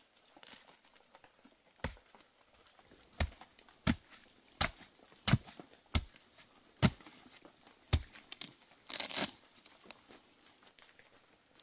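Eight sharp knocks, spaced a little under a second apart, followed about nine seconds in by a brief tearing, rustling sound.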